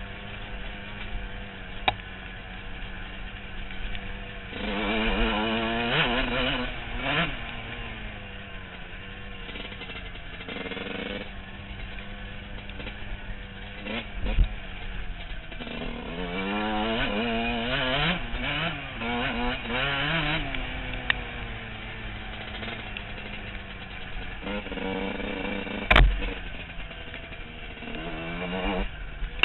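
Dirt bike engine riding a trail, revving up and dropping back in several surges with steadier running between, picked up by a helmet-mounted camera. A sharp knock stands out near the end.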